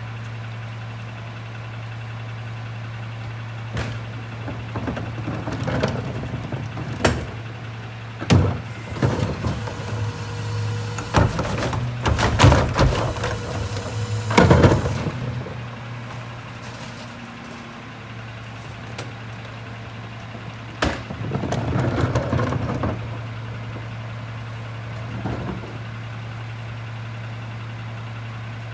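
McNeilus rear-loader garbage truck's diesel engine idling steadily, while a plastic wheeled trash cart is rolled up and tipped by hand into the hopper: a run of knocks and clatter about midway, loudest as the cart is emptied.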